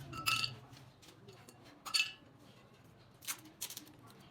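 Metal parts clinking: two sharp metallic clinks with a brief ring, about a second and a half apart, then a few lighter clicks near the end.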